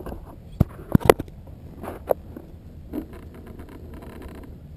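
Handling noise on a foam RC jet's onboard camera: sharp knocks and scrapes as the plane is handled on the grass, with a cluster of loud knocks about a second in and a brief rattle later, over a steady low rumble.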